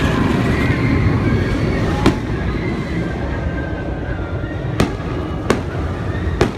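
Fireworks display: a continuous low rumble of bursts, with a sharp crack about two seconds in and three more near the end.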